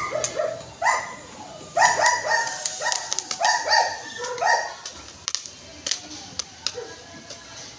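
A dog barking in a rapid series of short, high yaps, most of them in the first five seconds, followed by a few sharp light clicks.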